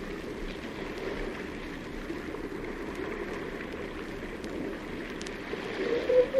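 Water sloshing as a steady low wash, with a seal starting a loud, long call near the end.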